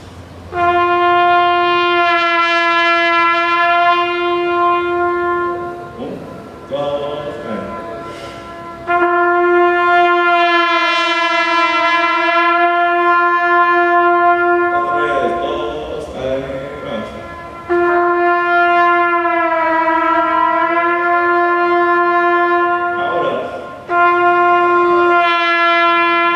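Trumpet playing four long held notes on the same pitch, each lasting several seconds, with short breaks between them. The pitch holds steady and then dips and wavers below it in places: the note is being played in tune and then bent down to show lip vibrato.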